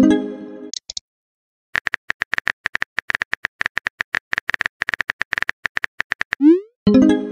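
Chat-app sound effects. A message-sent tone rings and fades at the start. Then a quick run of phone keyboard key-clicks plays for about four seconds as a message is typed. Near the end a short rising swoosh and another ringing tone mark the message being sent.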